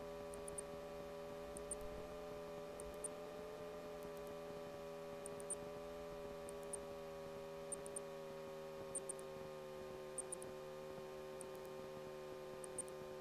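Light aircraft engine drone heard faintly through the intercom feed: a steady hum that eases slightly down in pitch on short final. Faint high ticks, often in pairs, come about once a second.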